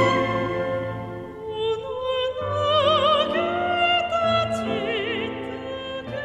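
Orchestral song with a female soprano: a held sung note with wide vibrato fades about a second in, then slow, sustained melodic phrases with vibrato carry on over held string chords.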